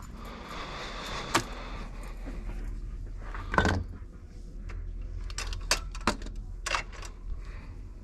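Hand-work on a metal ball wheel: tools and parts clicking and knocking, with a stretch of scraping near the start, over a steady low hum.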